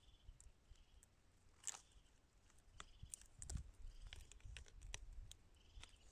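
Faint, scattered crackling and scraping of dry pine needles and leaf litter as gloved hands dig in the forest floor.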